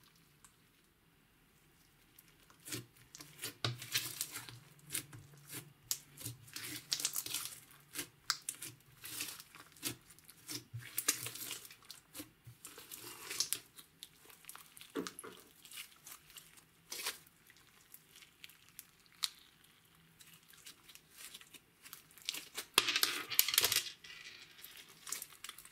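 Sticky green slime with foam beads being kneaded, pressed and stretched by hand, giving irregular crackles and pops, with a louder flurry of them near the end.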